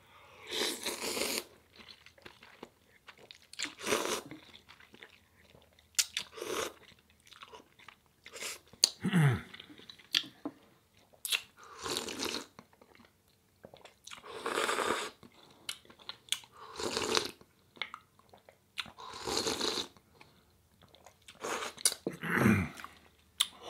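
A person eating instant ramen noodle soup close to the microphone: loud slurps of noodles and broth every two to three seconds, with wet chewing and small mouth clicks in between.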